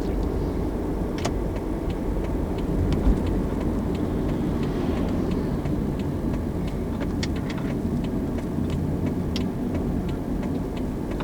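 Steady low rumble of a moving road vehicle, engine and tyre noise, with scattered faint clicks.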